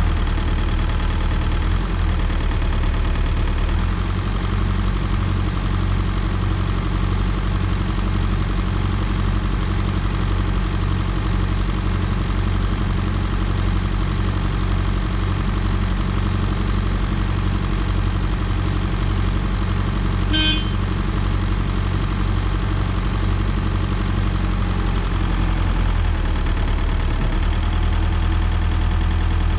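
Volvo BL71 backhoe loader's diesel engine idling steadily, with one short high-pitched beep about two-thirds of the way in.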